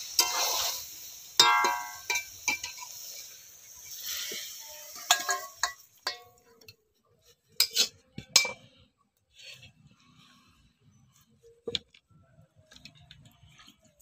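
Metal spatula stirring and scraping in a kadai of steaming, sizzling chicken curry, with a ringing metal clink about one and a half seconds in. After about six seconds there are only scattered faint clicks.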